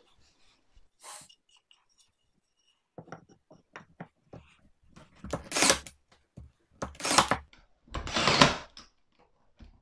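Cordless brad nailer firing three times, about a second and a half apart, driving brads into the glued joints of a hardwood chair frame. Before the shots come a few light knocks of the wooden frame being handled on the bench.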